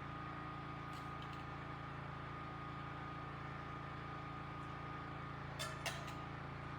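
Generator engine running steadily in the background with a constant hum. Two brief clicks sound near the end.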